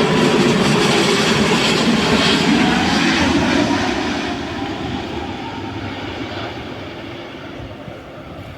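Airbus A330-200 airliner's jet engines, loud as it passes low on landing, with a faint whine that slides slowly down in pitch. From about four seconds in, the sound fades steadily as the aircraft moves away.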